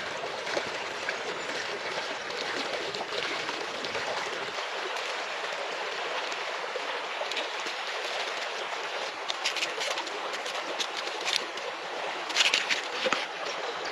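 A river stream rushing over stones, a steady hiss of water, with a few short crisp crunches near the end as a knife cuts into a red onion.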